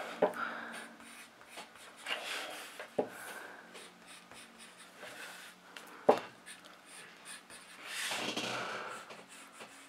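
Graphite pencil scratching on paper in shading strokes, rising to a louder stretch of scratching near the end, with two soft knocks along the way.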